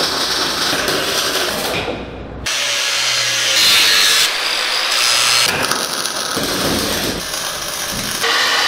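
Metalworking on steel: about two and a half seconds in, an angle grinder with a cut-off disc starts cutting steel plate with a loud, high hiss, throwing sparks. The stretches around it hold other shop noise, with MIG welding crackling near the end.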